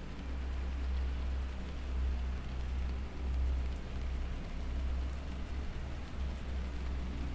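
Binaural-beats meditation track: a steady low drone under an even rain-like hiss.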